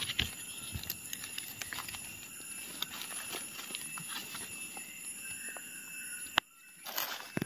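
Light rustling with scattered snaps and clicks, as of someone moving and picking through forest leaf litter. A sharp click comes about six and a half seconds in, and then the sound briefly cuts out.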